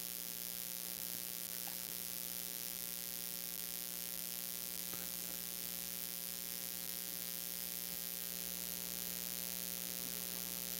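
Steady electrical mains hum with a faint hiss from the microphone and sound system: a few steady buzzing tones that never change.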